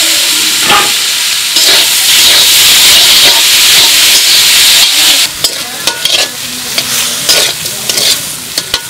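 Loud sizzle as wet, steamed taro stolons hit hot oil in an iron wok, dying down after about five seconds. Then clinks and scrapes of a metal spatula stirring them against the wok over a softer frying hiss.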